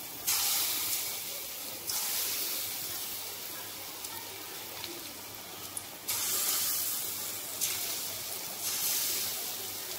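Maida bonda batter frying in well-heated oil: a steady sizzling hiss that surges about five times as each new ball of batter is dropped in by hand, easing off between drops.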